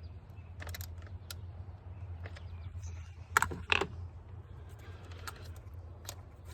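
Scattered small clicks and taps of hand tools and parts being handled during a coil pack swap, with two sharper clicks about three and a half seconds in, over a low steady hum.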